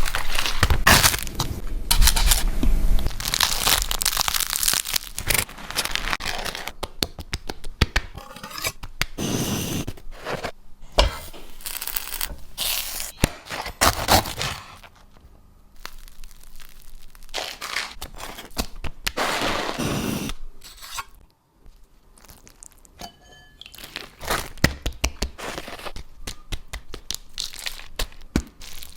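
Crusty sandwich bread crackling and tearing as sandwiches are cut and pulled apart, in several bursts of sharp crackles with quieter gaps between.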